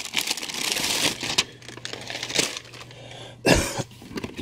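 Shipping boxes and product packaging being handled, with rustling and light knocks, then one short loud sound about three and a half seconds in.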